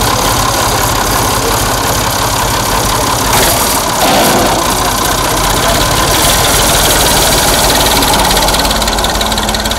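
Farm tractor's diesel engine running hard while a man holds the tractor back by its rear linkage. The engine gets louder about four seconds in.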